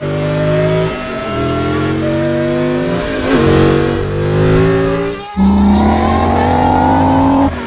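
Race car engines running at high revs, their pitch sliding slowly. A little after five seconds they drop away briefly, then one engine climbs steadily in pitch until it cuts off near the end.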